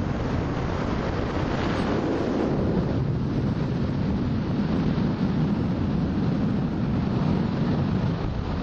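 Strong wind and airflow rushing steadily over the microphone of a camera on a hang glider in flight, a low, continuous buffeting.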